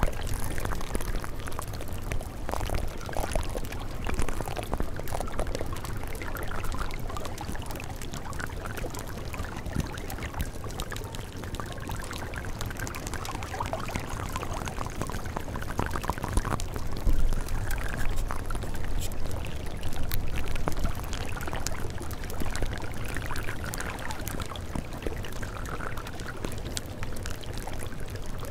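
Steady, unbroken sound of running, pouring water, used as the cover track of a subliminal audio.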